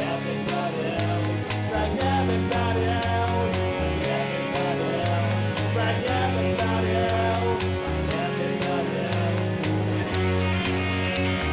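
Garage-rock cover song: a Fender Japan Jazzmaster electric guitar over a steady drum-machine beat and held low notes, with a voice singing.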